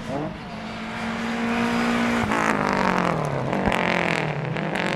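Lancia Delta HF Integrale rally car's turbocharged four-cylinder engine driving past at speed. A quick rev at the start, then a steady note that falls away as the car goes by, with a couple of sharp cracks.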